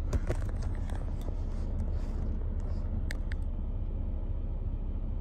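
Volvo XC90 3.2 l engine idling, a steady low hum heard from inside the cabin, with a few light clicks about three seconds in.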